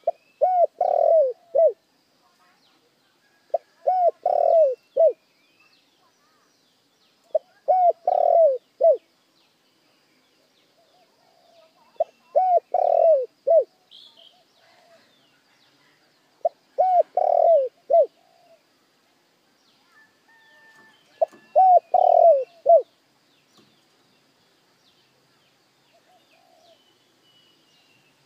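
Spotted dove cooing: six phrases of several quick, low coos each, one about every four to five seconds, with faint higher chirps behind.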